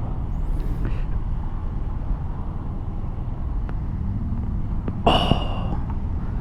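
Steady low rumble of a Kawasaki Ninja 400 running on the road with its LeoVince slip-on exhaust, mixed with wind. A short hiss comes about five seconds in.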